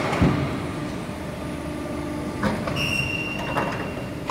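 Machinery running: a steady low hum with a knock just after the start and a few clicks about two and a half seconds in, then a high steady whine that sets in about two-thirds of the way through.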